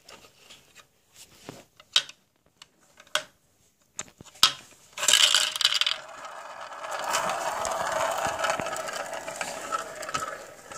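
Scattered clicks of marbles being handled against a plastic track, then from about five seconds in a continuous rattling of marbles rolling around an orange plastic funnel dish.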